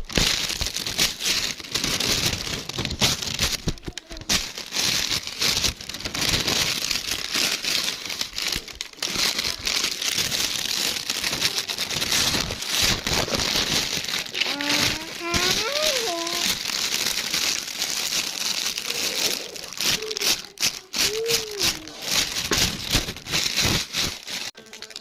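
Continuous crinkling, crackling noise made of many fine clicks, with a few short pitched sounds rising and falling in pitch about halfway through and again near 21 seconds in.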